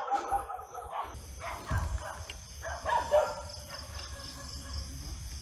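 Night insects trilling steadily, with several short faint pitched calls in the first three seconds and a low rumble under them.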